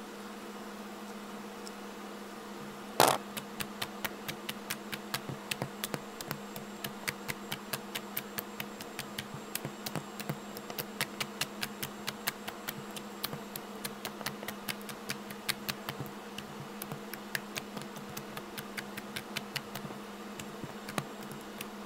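Homemade teal fluffy slime clicking and popping, several crisp pops a second, as fingers press and knead it on a tabletop. A single loud thud about three seconds in, over a steady low hum.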